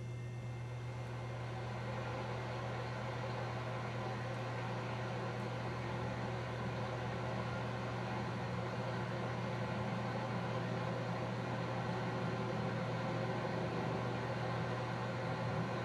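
A steady low hum under an even rushing noise that swells slightly over the first couple of seconds.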